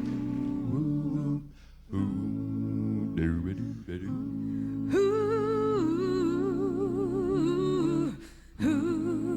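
Five-voice a cappella group humming a wordless introduction in held chords, breaking off briefly twice. From about halfway, a higher voice sings a melody with vibrato above the chords.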